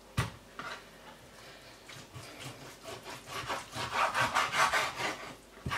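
Kitchen knife sawing back and forth through raw pork onto a wooden cutting board, quick scraping strokes that grow louder over the second half, after a single knock on the board just after the start.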